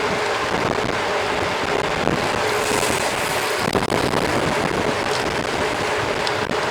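Steady rush of wind on the microphone mixed with the rolling noise of a mountain bike ridden at speed.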